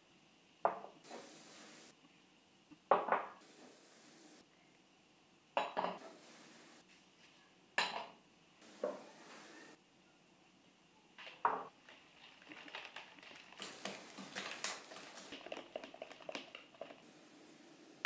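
Kitchenware clinking: a handful of separate sharp knocks of containers against a bowl as ingredients go in, then a whisk clattering quickly against the bowl for the last few seconds.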